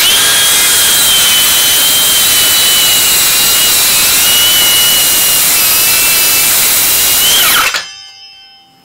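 Milwaukee cordless circular saw cutting through a thick board of coigüe wood. It spins up at the start and holds a steady high whine under load, dipping slightly as the blade bites. About seven and a half seconds in it is switched off and winds down.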